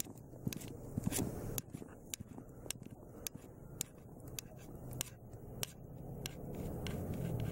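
Boots crunching in fresh snow, crisp irregular crunches about once or twice a second, over a low rumble that grows louder near the end.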